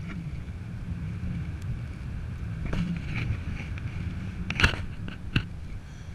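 Wind rushing over the microphone of a camera on a paraglider in flight: a steady low rumble, with two sharp pops about four and a half and five and a half seconds in.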